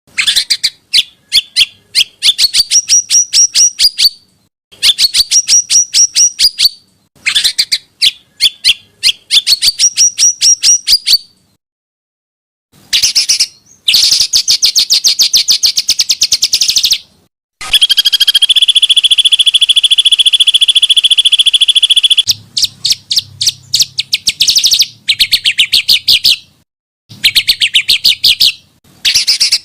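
Edited compilation of small songbirds singing: rapid strings of sharp chirps in harsh bursts, some climbing in pitch, cut off abruptly between phrases. About halfway through comes a long continuous trilling roll.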